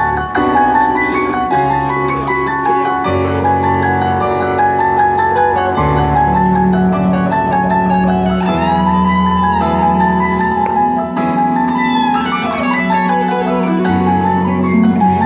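Yamaha Montage 8 synthesizer played by two people at once on a piano-like patch: a melody over sustained low bass notes that change every second or two. A few notes bend in pitch past the middle.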